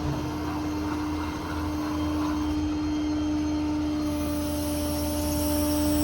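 Truck's 6.7 Power Stroke diesel running with a steady, even whine from the hydraulic pump driving the Stellar 7621 service crane. It gets slightly louder and brighter in the second half.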